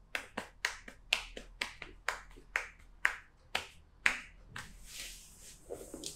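Sharp, rhythmic slaps of a masseuse's hands striking a client's back in percussive massage. There are about fourteen strikes, roughly four a second at first, spacing out around three seconds in, then they stop and softer hand sounds follow.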